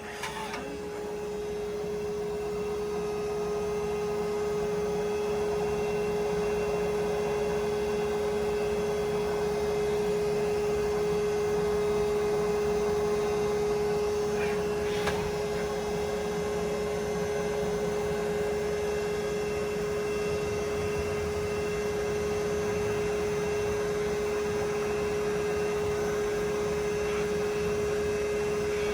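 Haas OM-2A CNC vertical mill running an adaptive clearing toolpath, a steady whine from the spindle and machine that builds over the first few seconds and then holds, with a couple of faint clicks.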